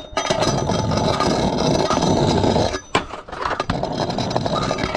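Trick scooter deck scraping along a rail in a board slide for nearly three seconds, ending in a sharp knock as the scooter drops off. Homemade hardwood wheels then roll loudly over concrete.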